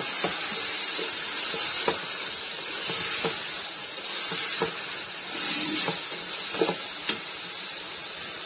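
Chicken pieces and tomatoes sizzling in a pot, a steady hiss, while a wooden spoon stirs them, giving several short knocks and scrapes against the pot.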